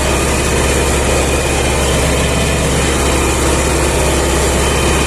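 MTZ-80 tractor's four-cylinder diesel engine running steadily.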